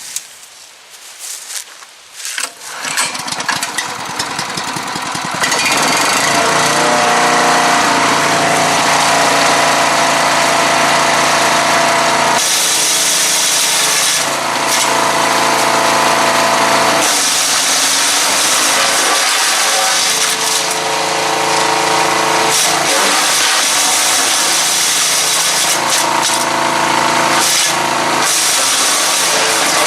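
Small gasoline wood chipper-shredder engine starting about two and a half seconds in and revving up, then running steadily. Wood is fed through and shredded, the chipping noise swelling and easing over the running engine.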